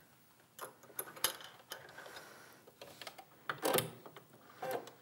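A few separate clicks and light knocks from hands working at a sewing machine while fabric is set under the presser foot, the loudest a little more than halfway through.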